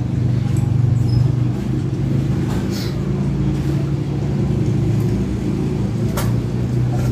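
A steady low mechanical hum, like an engine running, with a few short clicks.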